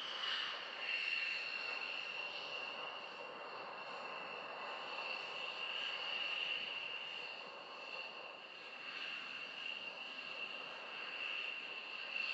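Distant jet engine giving a steady high-pitched whine over a rushing noise, the whine dropping slightly in pitch about a second in.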